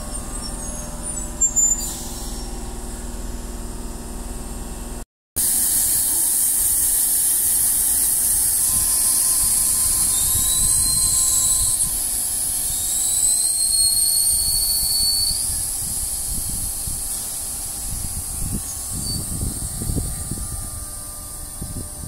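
Sydney Trains electric suburban train at a station platform: a low rumble, then a loud high hiss with thin squealing tones that glide upward, easing off toward the end. The sound drops out for a moment about five seconds in.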